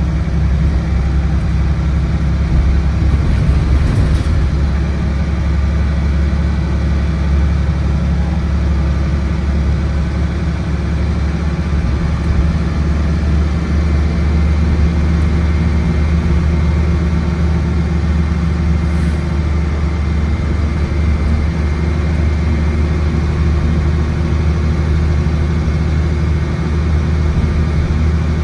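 Dennis Trident double-decker bus's diesel engine and Voith DIWA automatic gearbox, heard from inside the passenger saloon, running steadily under way at an even pitch, with a faint high whine over the engine.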